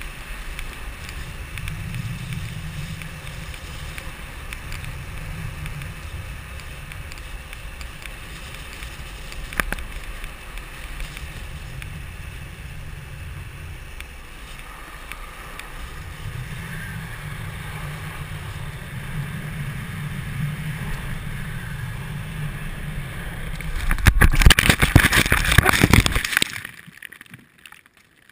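Longboard wheels rolling fast on asphalt, a steady rumble with wind rush on the board-mounted camera's microphone. Near the end comes a loud, scraping crash lasting about two seconds as the board wipes out and tumbles off the road, then it goes quiet.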